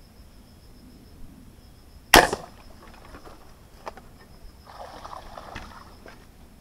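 Wooden rubber-band speargun fired into the river about two seconds in: one sharp, loud snap. Near the end, a second or so of splashing at the water's surface.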